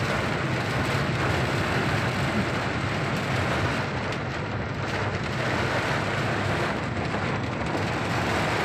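Steady road and engine noise of a moving car, heard inside the cabin, with a constant low hum under an even rushing noise.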